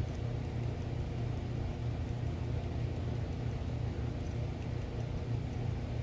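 A steady low mechanical hum, even and unchanging, with no distinct clicks or taps.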